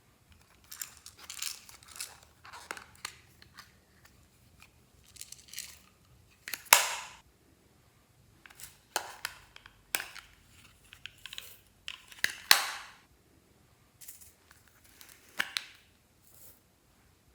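Hands squishing and folding glossy slime: a string of wet, crackly squelches and sharp air-bubble pops, each push a separate burst. The loudest are about seven, ten and twelve and a half seconds in.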